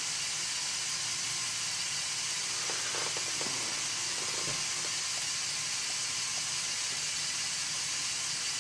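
LEGO Power Functions motor running steadily through the Technic gearing, slowly lowering the outrigger feet of the 42009 Mobile Crane MK II: an even, hissing whir, with a few faint clicks about three seconds in.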